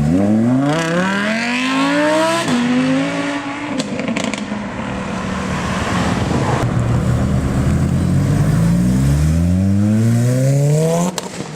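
A performance car's engine accelerating hard. The revs climb steeply, drop at a gear change about two and a half seconds in, then fade. A second run of climbing revs builds from about eight seconds and cuts off near the end.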